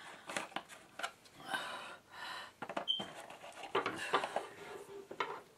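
Jigsaw puzzle pieces clicking and rustling in a cardboard box as a hand rummages through them, with a man breathing audibly between the clicks.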